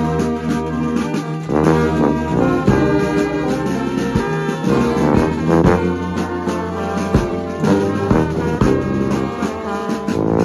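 Brass band playing: tuba, trombones and trumpets sounding together in sustained chords, with a bass drum beat about every second and a half.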